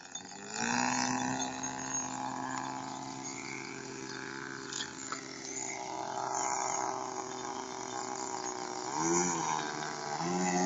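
AP Hornet .15 two-stroke glow engine of a model airplane running steadily in flight. About nine seconds in its pitch dips and then climbs, settling higher.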